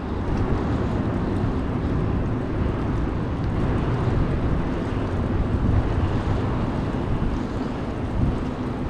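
Steady rush of wind over the microphone of a camera carried on a moving bicycle.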